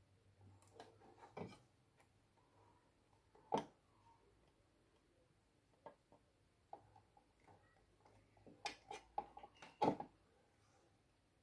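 Faint, scattered light clicks and taps of hand tools working on a motherboard while a capacitor is being desoldered. The clicks come irregularly, with a quick cluster near the end, over a faint low hum.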